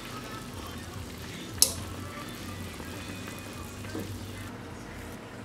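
Potatoes boiling in a stainless-steel saucepan of water, a steady bubbling hiss, as a fork is poked into them to test whether they are cooked. The fork strikes the pot with one sharp clink about one and a half seconds in and knocks it lightly again near four seconds.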